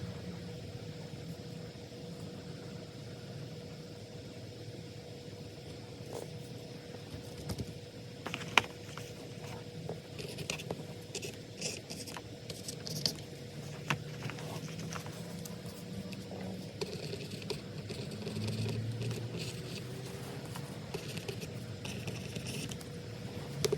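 Pen writing on paper: short scratchy strokes in clusters, with a few light taps on the desk, over a steady low hum.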